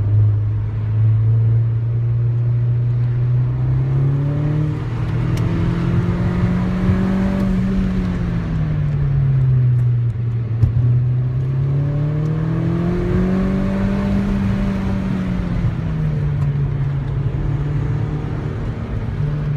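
Mini John Cooper Works' turbocharged four-cylinder engine heard from inside the cabin, its revs climbing and falling twice as the car accelerates and lifts off, with steady tyre and road noise beneath.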